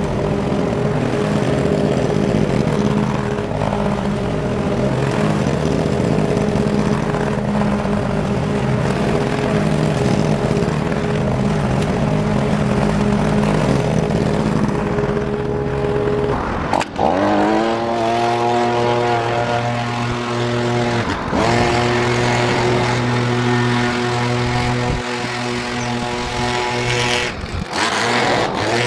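Walk-behind petrol lawn mower engine running steadily while cutting wet grass. About two-thirds of the way through, the sound breaks off for a moment and comes back as a steadier, even engine note.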